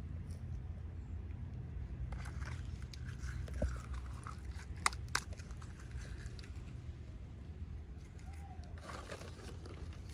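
Small plastic packaging being handled: soft crinkling and light clicks over a steady low hum, with two sharper clicks about five seconds in.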